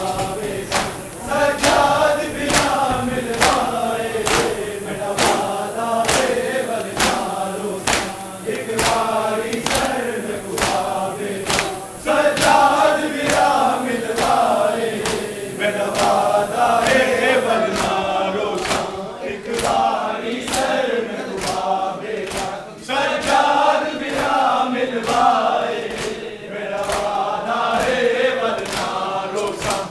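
Crowd of men chanting a noha in unison while beating their chests (matam) in time, the open-hand strikes landing about one and a half times a second. The chant comes in repeated phrases, with a loud new phrase starting about twelve and again about twenty-three seconds in.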